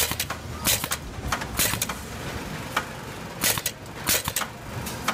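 Shoe-factory machinery: sharp, irregular clacks, about eight in all, over a steady low machine hum.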